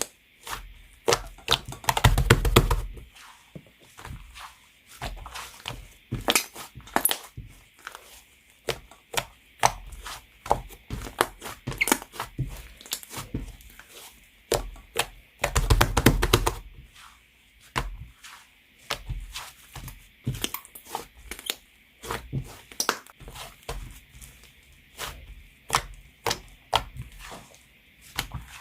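White clay slime being handled, pressed and stretched, giving a run of sticky clicks, crackles and small pops, with two louder bursts of dense squishing about two seconds in and again around the middle.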